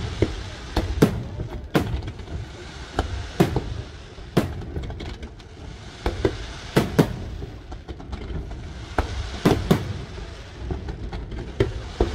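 Large professional fireworks display: aerial shells and mines going off in a rapid, irregular string of sharp bangs, roughly two a second, over a continuous low rumble.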